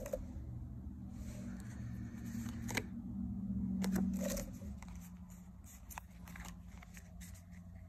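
Pokémon trading cards being handled: rustling and a few sharp clicks as cards are picked up and slid through the hand, over a low steady hum.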